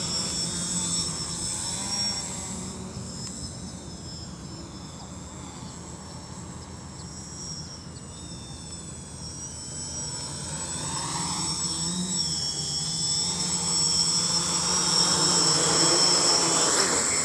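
Electric motors and propellers of an OFM-450 V2 (F450-size) quadcopter whining steadily, with a low hum beneath. The sound grows louder over the second half as the quad comes in close to the pilot.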